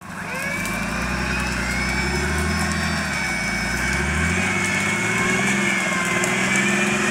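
Off-road vehicle's engine running steadily, its pitch rising about three to four seconds in as it revs up and then holding at the higher speed.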